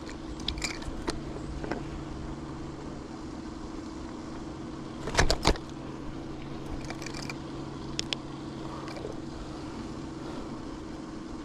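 A motor on a bass boat humming steadily, with scattered clicks and knocks of handling on the boat; the loudest is a pair of sharp knocks about five seconds in.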